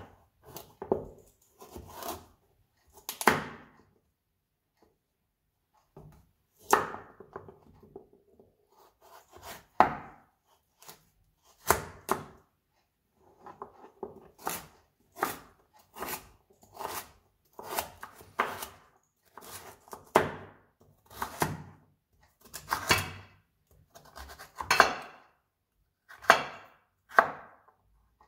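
Large kitchen knife cutting through raw carrots onto a plastic cutting board: separate cuts about one a second, with a short pause a few seconds in.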